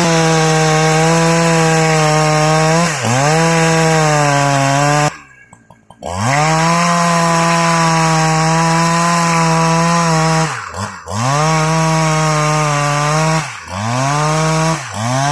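Husqvarna 365 Special two-stroke chainsaw running at high revs under load, cutting lengthwise through laban wood. The engine speed dips briefly and recovers several times. The sound cuts out for about a second around five seconds in.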